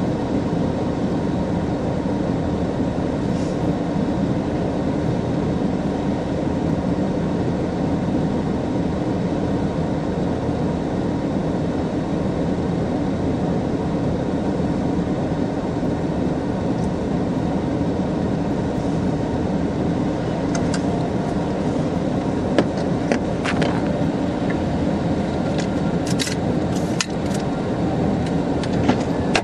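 Steady low rumble inside a vehicle's cabin with the engine running, joined by scattered sharp ticks in the last several seconds.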